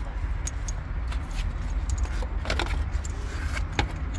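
Light metallic clinks and rattles of seat belt hardware being handled as the belt is taken out and fed through, over a steady low rumble.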